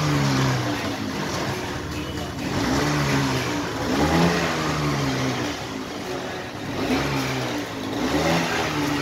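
Motorcycle engine revved again and again in short blips, its pitch rising and falling about five times.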